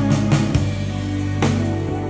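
Recorded pop ballad music in an instrumental passage, with sustained bass notes and a few sharp drum hits, played back through a homemade single-ended 6CA7 triode-connected valve amplifier driving a pair of two-way bookshelf speakers.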